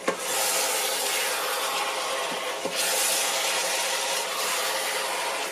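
Lamb pieces, tomatoes and spices sizzling in the hot nonstick inner pot of a multi-cooker on its brown/sauté setting, with a steady hiss, while a wooden spoon stirs and rubs through them. The sizzle grows a little louder about three seconds in.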